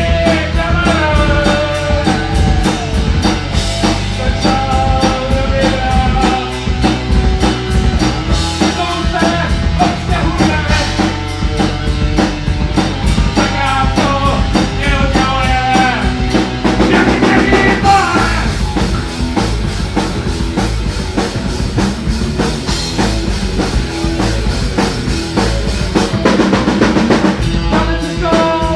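Rock song with drum kit, guitar and singing.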